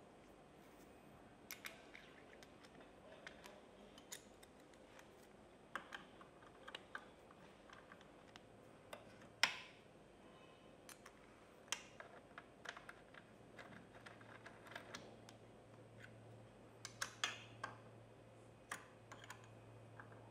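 Small metal parts clicking and clinking: steel guide pins and aluminium rollers being picked up, set down and fitted to a roller guide with an Allen key, as scattered sharp taps, the loudest about nine seconds in.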